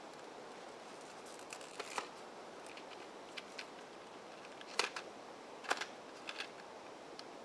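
Scattered clicks and crinkles of plastic blister packaging being handled and opened to take out a scent snap cap, with a few sharper snaps in the second half.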